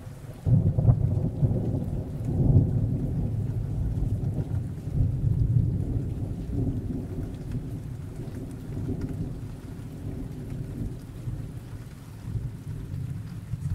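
Rolling thunder: a low rumble that breaks in loudly about half a second in, swells again a couple of seconds later, then rolls on and slowly fades.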